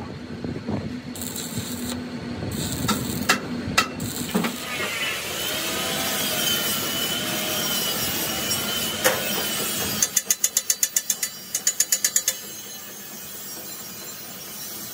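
Metalworking on a rolled steel wheel-rim band: a few sharp knocks in the first few seconds, a wavering whine through the middle, and two quick runs of sharp ticks, about ten a second, around ten seconds in.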